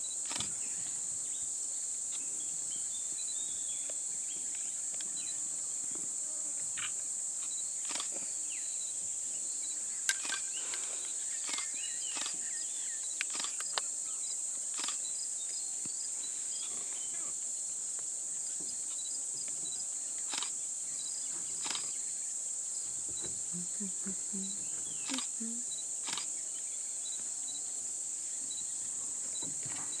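Steady high-pitched drone of insects, with scattered faint clicks and chirps.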